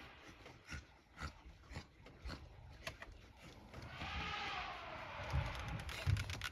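Elephant trumpeting: one long call starting about four seconds in that slides down in pitch, over scattered sharp clicks.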